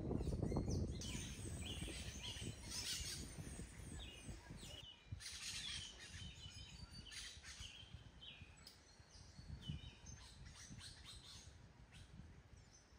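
Small birds chirping in short repeated calls, some sliding down in pitch, over a low rumbling noise that is loudest in the first second or two and then fades.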